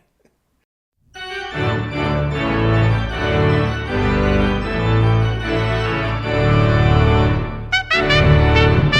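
About a second of silence, then organ music: full, sustained chords over changing bass notes. Near the end it breaks off briefly and brass music with sharp, clearly separated notes, likely trumpet, begins.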